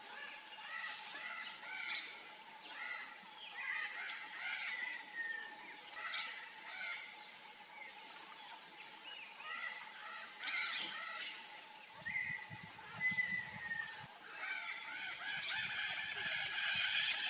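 Wetland daytime chorus: many wild birds chirping and calling over a steady high-pitched insect drone, with a louder, harsh, crow-like call for the last couple of seconds.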